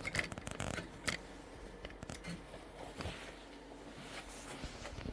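Faint handling noise: scattered small clicks and rustles, several in the first second or so, then mostly quiet with a lone click about three seconds in.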